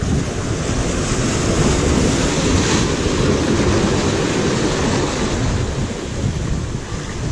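Ocean surf: a wave surges into a narrow rock channel and breaks into foaming whitewater, a loud, continuous wash and rumble, at its brightest about two to three seconds in.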